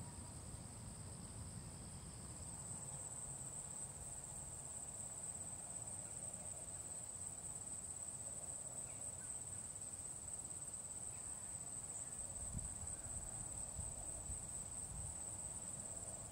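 Steady, high-pitched insect trilling, with a second, lower trill that drops out about two and a half seconds in. A faint low rumble sits underneath.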